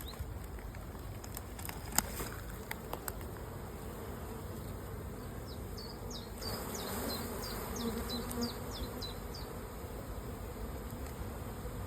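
Honeybees buzzing from an opened hive with a populous colony, with a few light clicks in the first three seconds. About halfway through the buzz swells, and a quick run of short high chirps sounds over it for about three seconds.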